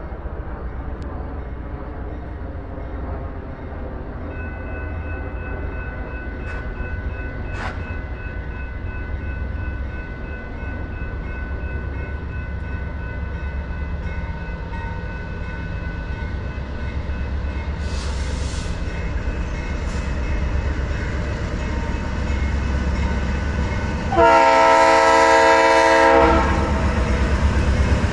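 Approaching train rumbling, growing gradually louder as it nears, then the locomotive sounds a loud multi-note horn for about two seconds near the end.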